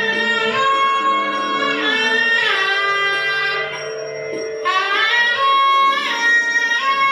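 Shehnai-type double-reed pipe playing a slow melody of long held notes that slide and bend into one another, over a steady drone. The melody drops away briefly a little past the middle, then comes back.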